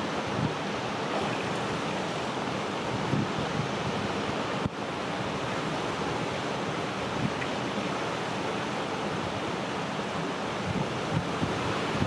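Steady rushing of a shallow river flowing over rocks.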